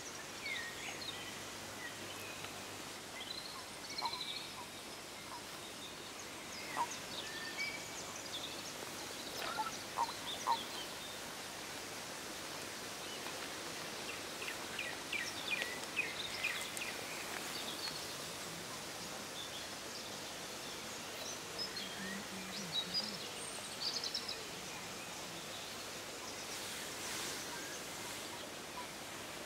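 Scattered short bird chirps and calls over a soft, steady outdoor hiss, with a quick run of chirps about halfway through.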